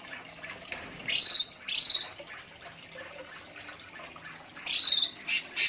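Cucak ranti songbird singing in an aviary: two short, bright, high phrases about a second apart, a pause, then another phrase near the end that runs into a quick series of repeated notes.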